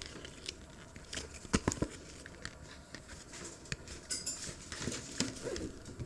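Small toy crayon tapping and scraping on a sheet of paper, with light paper handling: a scatter of irregular soft clicks and scratches and a short high scratch about four seconds in. The crayon is failing to mark the paper.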